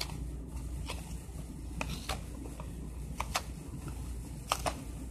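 Paperboard cheesecake box being pried open by hand: scattered crinkles and sharp clicks as the cardboard flap is worked loose, over a low steady hum.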